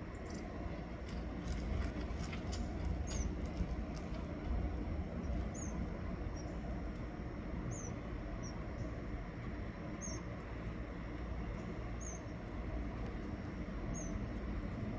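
A bird chirping: short, high, downward-gliding chirps, one every two seconds or so, over a steady low rumble. A few clicks sound about one to four seconds in.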